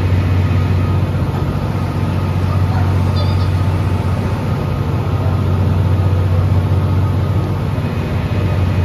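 Steady low hum of E26-series Cassiopeia sleeper coaches standing at the platform with their on-board equipment running, with a brief high chirp about three seconds in.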